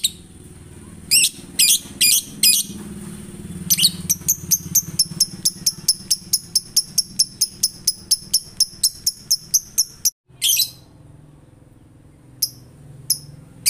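Male lovebird doing its ngekek: a few separate sharp chirps, then a long rapid run of high chirps at about five or six a second lasting some six seconds, followed by one more call and a few faint chirps. A low steady hum lies underneath.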